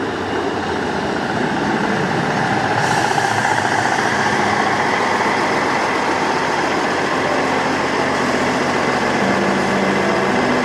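Northern Class 158 diesel multiple unit running alongside the platform: a steady rumble from its underfloor diesel engines and wheels on the rails, growing louder as the coaches draw level. A steady low engine hum comes in near the end.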